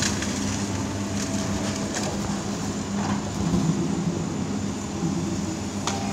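Hydraulic excavator's diesel engine running steadily under load while it demolishes a brick building, with a couple of sharp cracks of debris, one about two seconds in and one near the end.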